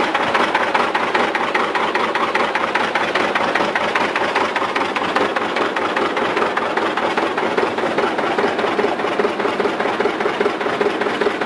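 Farm tractor engine idling steadily close by, a rapid even pulsing.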